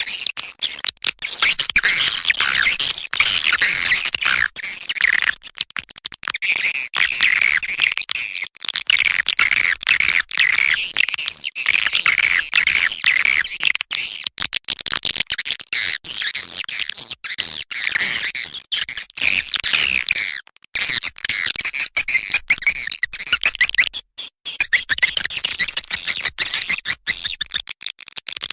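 Swiftlet calling (lure) sound: a dense, continuous chatter of many swiftlet chirps and twitters, high-pitched, with brief breaks, as played to draw swiftlets to a nesting house.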